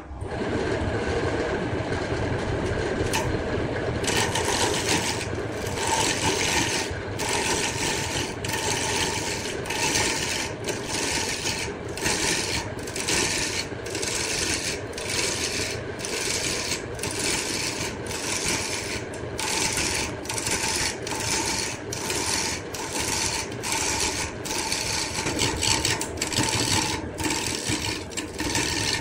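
Wood being worked on a wood lathe, a tool or abrasive rubbing against the spinning scrap-wood blank. From about four seconds in, a rasping stroke repeats about twice a second.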